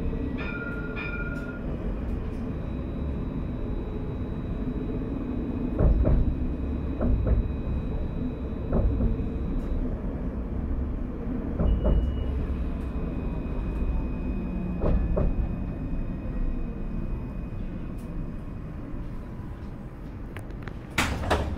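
Alstom Citadis 402 tram running along the line, a steady low running noise with a faint high whine over it. Several heavy knocks from the wheels over rail joints or switches come at uneven intervals, and a sharp clatter sounds near the end.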